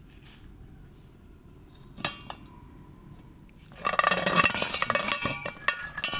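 Metal clanking of a propeller shaft's universal joint and yoke being handled and worked apart. There is one sharp click about two seconds in. From about four seconds in comes a dense rattle of metal-on-metal knocks with ringing.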